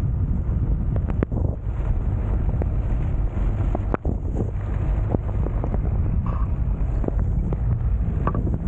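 Wind buffeting a camera microphone mounted outside a moving Citroën C15 diesel van, over a steady low rumble from the van, with scattered sharp clicks throughout.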